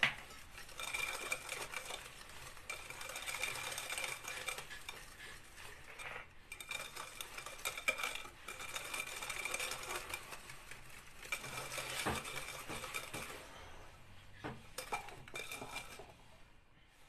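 Wire whisk beating chocolate brownie batter by hand in a glass mixing bowl, the metal wires scraping and clinking against the glass in a continuous rattle. It pauses briefly about six seconds in and eases off near the end.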